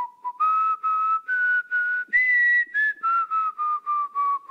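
A person whistling a short tune: about a dozen clipped notes that step up in pitch to a high held note a little past two seconds in, then step back down note by note.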